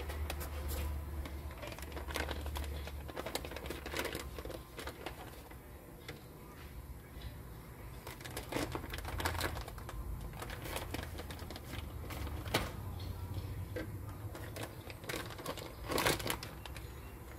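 Plastic bag crinkling and rustling as it is handled and opened by hand, in irregular crackles, loudest about sixteen seconds in, over a low steady hum.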